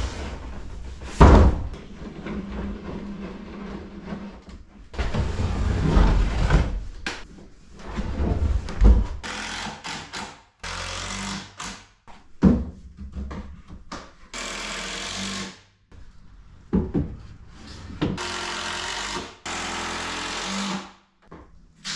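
Knocks and scraping of a wooden float frame and plastic dock float being handled and set in place, with one loud thunk about a second in. From about halfway there are several short bursts of a power tool, each starting and stopping sharply.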